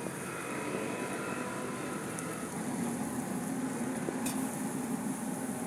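Steady street-stall noise: kulchas on a hot flat griddle sizzling low under passing traffic, with an engine hum growing louder about halfway through and one light click about four seconds in.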